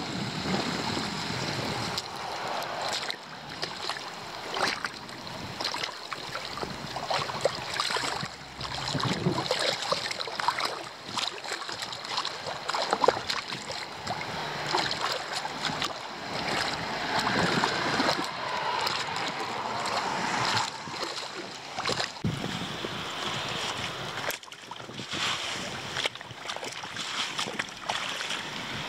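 Pooled rainwater over a leaf-blocked roadside drain splashing and sloshing as it is cleared, with irregular scrapes and knocks throughout.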